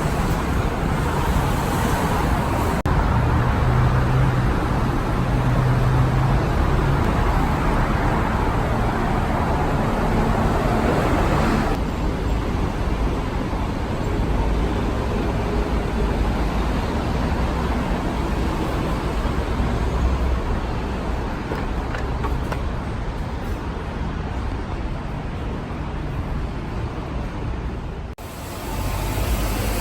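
City traffic ambience: the steady rumble and hiss of road traffic, changing abruptly a few times as one recording gives way to the next.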